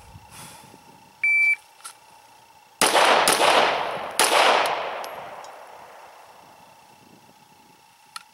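A shot timer beeps once. About a second and a half later a Glock 34 9mm pistol fires three shots, two close together and a third about a second after, each followed by a long fading echo.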